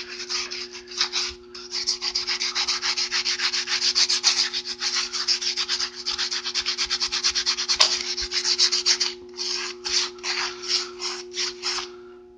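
Scotch-Brite scouring pad, wired to a battery charger for electrolysis, scrubbed rapidly back and forth over a wet, vinegar-and-salt-coated steel truck frame to strip rust. The strokes break briefly about a second and a half in, grow sparser after about nine seconds and stop just before the end.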